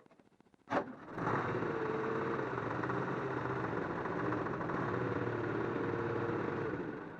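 A motor or engine starts abruptly, runs steadily at one even pitch for about six seconds, then winds down and stops.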